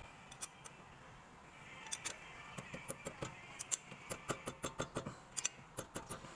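A run of light metallic clicks, about four a second, starting about two seconds in, as a wrench works a fitting on a brake caliper.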